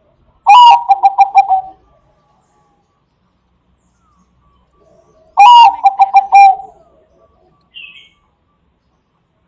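Zebra dove (Bangkok perkutut) singing two loud phrases about five seconds apart, each a drawn-out opening coo followed by a quick run of about five short coos. A faint high chirp near the end.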